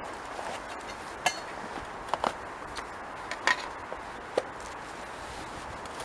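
Camping kit being taken out of a rucksack and set down on the ground: a few short, sharp clicks and knocks of hard items being handled, over a steady background hiss.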